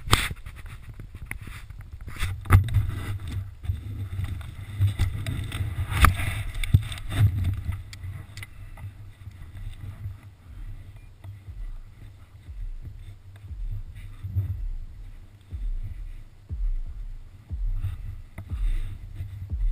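Wind buffeting the camera's microphone: a low rumble that rises and falls in gusts, with scattered knocks and rustles of gear during the first eight seconds or so.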